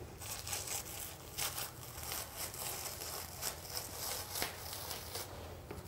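Sticky blue painter's masking tape being peeled up off carpet fibres, a quiet crackling tear made of many small ticks.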